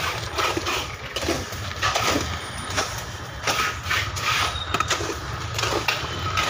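Broken concrete and rubble being scraped and lifted out of a hole in a floor by hand, irregular scrapes and knocks, over a steady low rumble.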